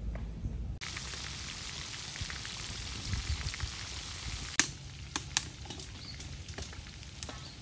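Battered chicken drumsticks deep-frying in a wok of hot oil: a dense, steady sizzle starts about a second in. It eases a little past the halfway point, when a few sharp pops stand out.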